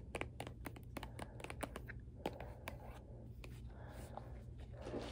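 Fingers and long nails handling a plastic squeeze tube close to the microphone: irregular small clicks and scratching as the tube is turned over.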